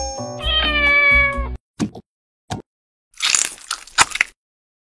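A cat meows once, a long call falling slightly in pitch, over the tail of background music that stops about a second and a half in. Near the end, a muddler crushes tomatoes in a glass with a few short squashing crunches.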